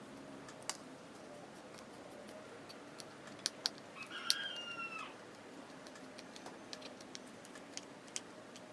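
Faint scattered clicks and small taps of hands and tools working on a phone, with a brief squeak that falls slightly in pitch about four seconds in.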